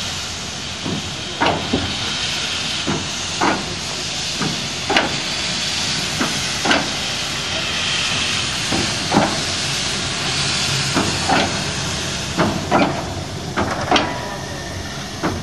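Class 38 (Prussian P 8) steam locomotive 38 3199 standing in steam, with a steady hiss of escaping steam. Irregular short, sharp beats come over it every half second to a second and a half.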